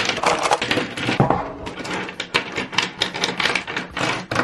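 Plastic Pentel gel pens clicking and clattering against one another and the tabletop as they are set down and arranged in rows, a quick, uneven run of small knocks.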